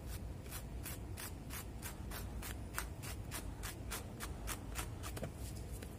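Sandpaper scrubbing back and forth on the knee of black denim jeans, in quick even strokes at about four a second, wearing the fabric through to widen a ripped-knee hole.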